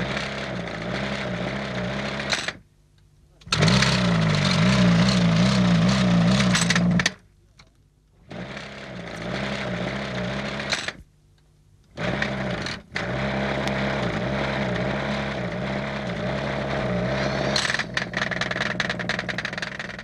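Stelzer free-piston engine, a two-stroke double-piston design, running in bursts of a few seconds and cutting out abruptly about four times before catching again, its note wavering. It is not running properly: a stuttering, faltering run.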